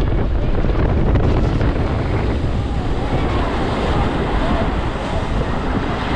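Log flume boat running through the flume on its drop, with water rushing and steady wind noise buffeting the microphone.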